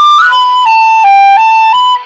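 Concert flute playing a short melodic phrase in G: a high opening note, then single notes stepping down four times and back up twice, each held about a third of a second, stopping at the end of the phrase.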